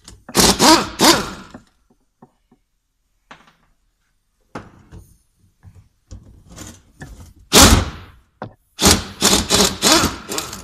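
Pneumatic impact wrench running in short bursts, loosening the nuts that hold the turbocharger to the cast-iron exhaust manifold. There are two bursts right at the start, then a short loud one and a longer run in the last few seconds, with quieter clanks of metal parts being handled in between.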